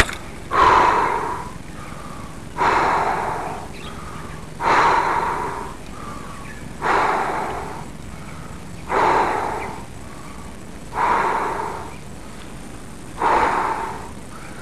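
Heavy breathing close to the microphone: a hard, out-of-breath exhale about every two seconds, each starting sharply and fading over about a second.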